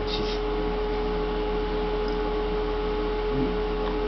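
A steady electrical hum at one pitch, with a brief faint high-pitched sound at the very start.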